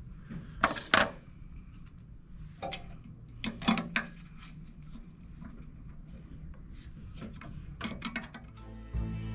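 Screwdriver clicking and scraping on the screws and metal cover plate of a Mythos Basic espresso grinder's clump crusher, in a few short bursts: about a second in, around three to four seconds in, and near eight seconds. Outro music starts at the very end.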